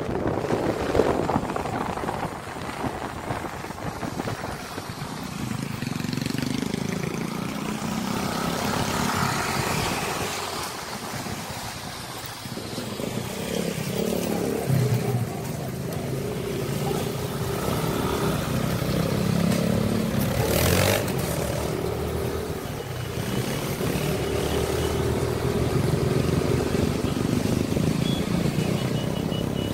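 Motorcycle engine running while riding at speed through streets, its revs rising and falling, with rushing wind over it. One short sharp knock comes about two-thirds of the way through.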